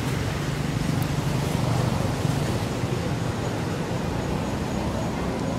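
Steady low engine rumble under an even hiss, strongest in the first two seconds and easing a little after.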